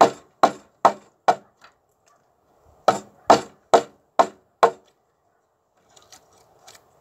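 Mallet driving a chisel into a timber beam, chopping out the notch for a joist: two runs of about five sharp knocks, roughly two a second, with a pause of about a second between them, then a few faint taps near the end.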